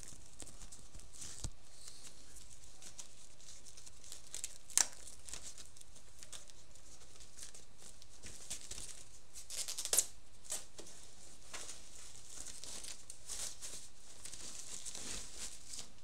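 Protective foam and plastic wrapping around a new laptop crinkling and rustling as it is unwrapped, in scattered short rustles with sharper crinkles about five and ten seconds in, over a steady hiss.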